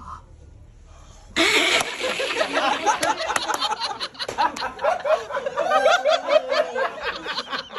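A group of men break out laughing about a second and a half in, then keep on laughing and chuckling loudly.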